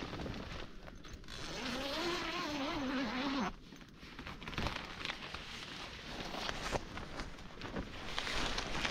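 Tent door zipper being pulled open, a scratchy rasping run with fine clicks. In the first few seconds a person's voice sounds a drawn-out, wavering note over it.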